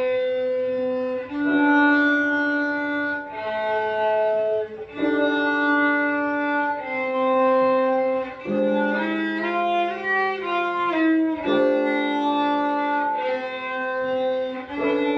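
Violin played with the bow: a slow melody of long held notes, each a second or so, with a quicker-moving passage over a held low note in the middle.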